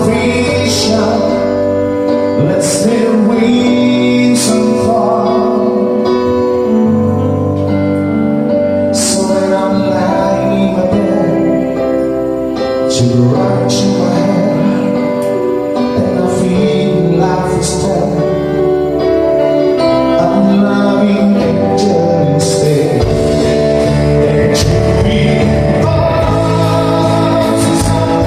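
A live band playing a song with a singer, over sustained chords and regular drum and cymbal hits.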